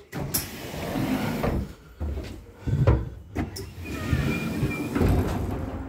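Walking through an intercity train carriage's vestibule: knocks, clatter and footsteps while a button-operated interior sliding door is opened, with sharp clicks near the start and about three and a half seconds in. A thin high tone sounds for under a second about four seconds in.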